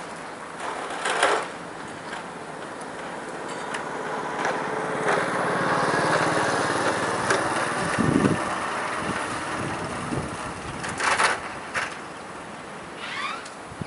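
A motor vehicle's engine passing close by, swelling over several seconds to its loudest around the middle, then fading.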